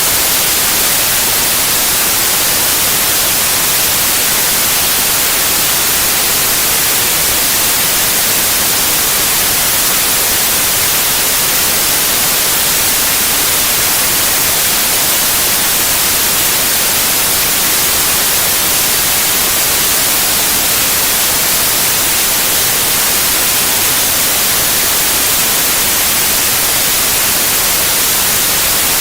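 Steady white noise: an even, unchanging hiss that is strongest in the high frequencies.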